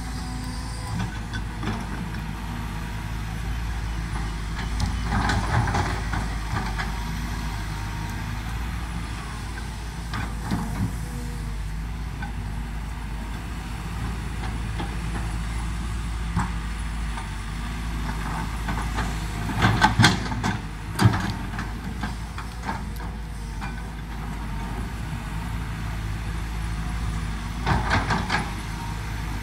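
Kobelco SK200 tracked excavator working: its diesel engine runs steadily under hydraulic load as the boom swings and the bucket digs. Knocks and scrapes of the steel bucket in the soil come a few times, loudest as a cluster of sharp clanks about two-thirds of the way in.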